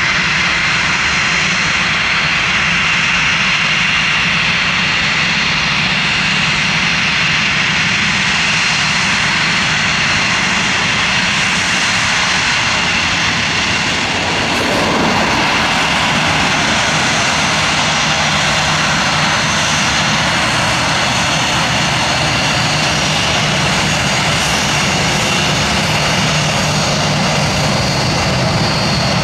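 Jet engines of a Ryanair Boeing 737 at taxi power as it rolls past close by: a steady whine over a continuous rushing noise.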